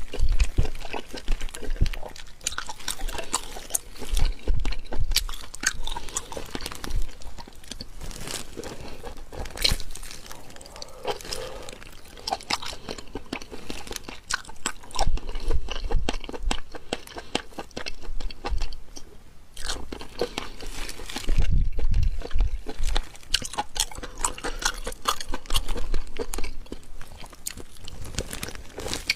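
Close-miked eating sounds: a person biting and chewing crunchy food, with dense crackling crunches throughout and heavier bites in clusters.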